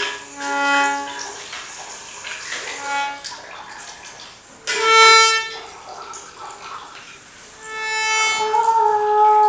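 Self-playing reed instruments sounding a few swelling notes rich in overtones, one after another: short ones at first, a loud one about halfway, and a long held note near the end. Faint water sounds run underneath.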